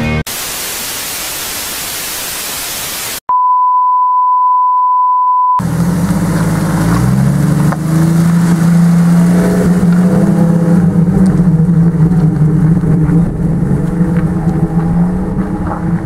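A burst of white-noise static for about three seconds, then a steady 1 kHz test-tone beep for about two seconds, then a four-wheel-drive vehicle's engine running under load.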